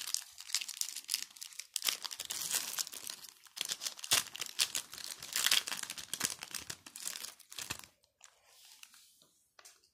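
Foil trading-card booster pack being torn open and crinkled by hand, a dense crackling that stops about eight seconds in; after that only faint clicks of the cards being handled.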